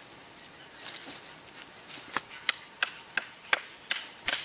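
A hatchet tapping a carved wooden wedge down into the split top of a green-wood mallet handle: a run of light, sharp knocks that come about three a second from about two seconds in, over a steady high-pitched buzz.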